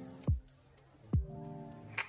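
Background music: a short repeating melody of held notes, with two deep hits that drop sharply in pitch.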